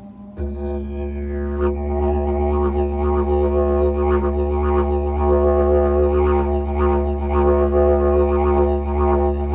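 Didgeridoo drone starting about half a second in: one steady low fundamental with a strong stack of overtones, the upper overtones shifting and pulsing in a loose rhythm as the player shapes the sound with mouth and voice.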